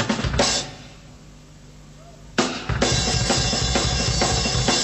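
Drum-kit music with a bass line. It drops away about half a second in, then comes back in suddenly and loud about two and a half seconds in, and falls away again near the end.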